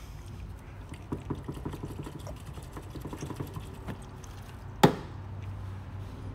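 Car body panel being wiped down with a cloth after a spray of cleaner as glue-pull prep: a soft, scratchy rubbing with small ticks, then one sharp knock a little under five seconds in.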